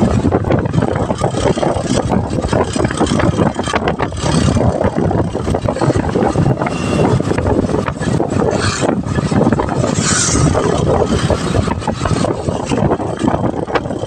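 Motor tricycle's small motorcycle engine running steadily on the move, mixed with wind and road noise on the microphone.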